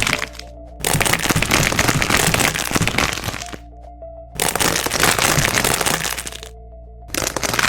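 Repeated bursts of dense crackling, each lasting one to three seconds with short pauses between, over soft background music.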